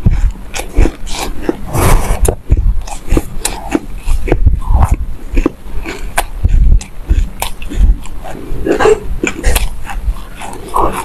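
Close-miked chewing of a mouthful of raw black sesame seeds: dense, irregular crunching with many small clicks.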